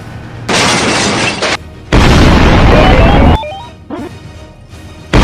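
Cartoon fight sound effects: a crashing hit about half a second in, then a louder, longer boom from about two seconds in that cuts off abruptly, with music.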